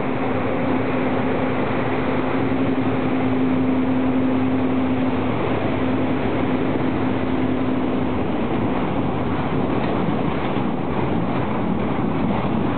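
Electric locomotive of a works train departing and passing close by, with a steady hum that fades out about eight seconds in. Low flat wagons then roll past, wheels clicking over the rail joints near the end.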